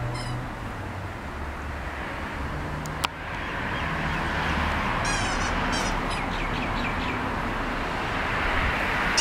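Steady outdoor background noise with a low hum, a single sharp click about three seconds in, and a quick run of short high-pitched chirping calls between about five and seven seconds in.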